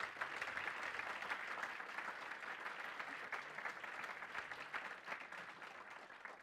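Audience applauding the end of a talk: many hands clapping in a dense patter that thins out near the end.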